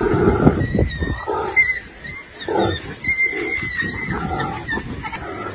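Spotted hyena growling and squealing under attack from African wild dogs, mixed with the dogs' thin, high-pitched twittering chirps about a second in and again around the middle.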